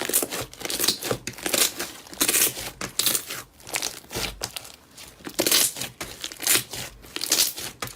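Crunchy material being squeezed and crushed, giving crackling, crinkling bursts that come unevenly, about once or twice a second.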